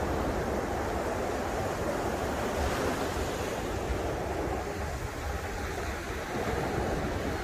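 Ocean surf breaking and washing up a sandy beach in a steady, continuous wash.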